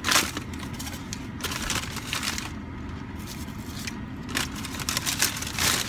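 Food wrappers crinkling and rustling as they are handled, in irregular bursts, over the low steady hum of a car engine idling.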